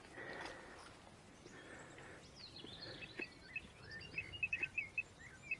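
Small birds chirping and singing in quick, irregular short notes, starting about halfway through, over faint outdoor background noise.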